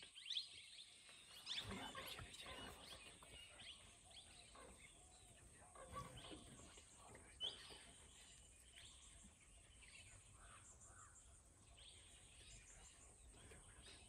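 Near silence: faint forest ambience with scattered soft bird chirps, one a little sharper about seven seconds in.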